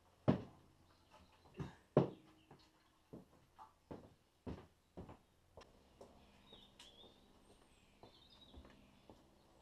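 Footsteps on a hard floor, about two a second, with a sharper knock or two as the motorcycle's petrol tank is handled; they stop about halfway through, and faint birdsong follows near the end.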